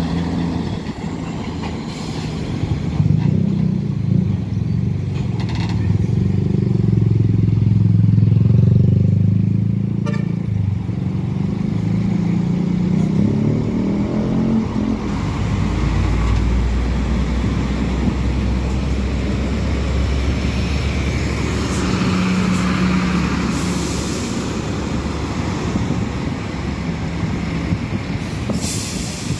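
Heavy trucks' diesel engines running as the trucks move past close by, one after another, over steady street traffic noise. The engine sound swells to its loudest about eight seconds in, and a deeper engine rumble takes over around the middle.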